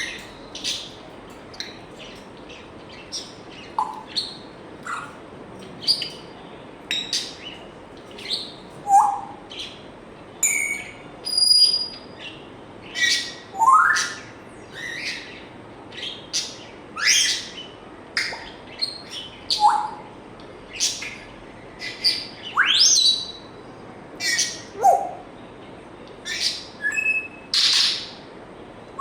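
African grey parrot making a run of short chirps, squeaks and whistles, about one or two a second, several of them quick rising sweeps.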